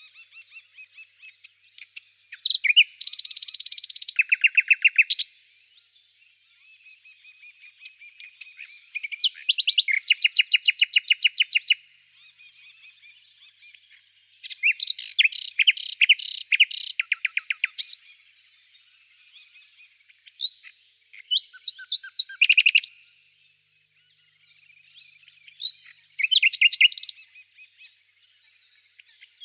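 A songbird singing: five loud phrases of fast-repeated trilled notes spaced a few seconds apart, with quieter chirping from other birds in between.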